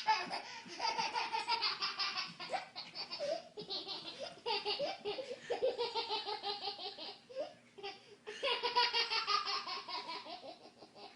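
Baby laughing hard in three long runs of quick laughs, with short breaks between them.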